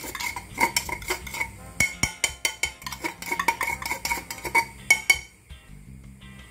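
Knife tapping and scraping against a ceramic bowl in quick, irregular strokes as canned tuna is broken up, each tap leaving a short ring from the bowl. The tapping stops about five seconds in.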